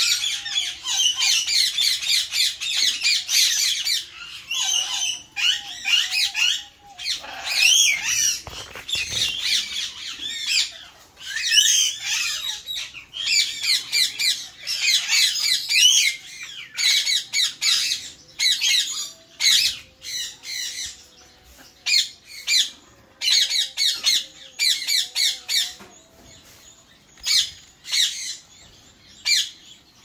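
Parrots squawking: dense runs of rapid, high-pitched calls that come in clusters with short gaps, thinning out for a few seconds past the middle and picking up again near the end.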